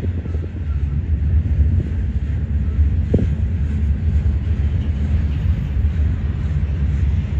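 Double-stack intermodal container freight train rolling past, a steady low rumble of its railcars with one short knock of the wheels about three seconds in.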